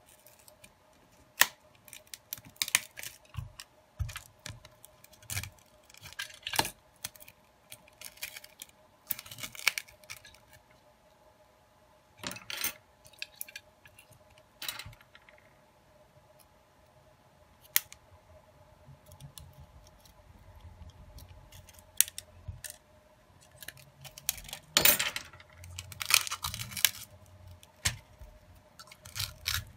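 Scattered clicks, taps and short scrapes from hands and a prying tool working on the plastic frame and parts of a Samsung Galaxy A02s phone being taken apart, over a faint steady hum. The handling gets busier and louder near the end.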